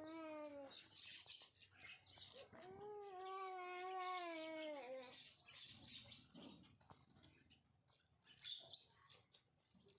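Small birds chirping busily around scattered rice. Two long, drawn-out meow-like wails cut across it, one fading out just after the start and a longer one from about 2.5 to 5 seconds in.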